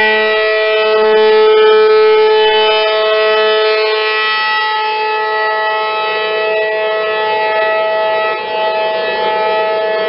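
Rotating outdoor tornado warning siren sounding at a steady, held pitch, its loudness slowly swelling and easing as the horn turns.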